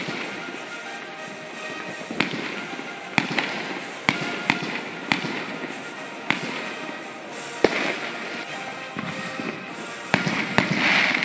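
Aerial fireworks shells bursting: about ten sharp bangs at irregular intervals, with a crackling, hissing burst near the end. Music plays underneath.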